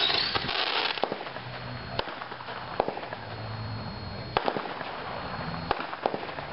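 Spirit of 76 'Shock Factor' 28-shot firework cake firing. A dense crackling burst comes in the first second, followed by separate sharp bangs about a second apart.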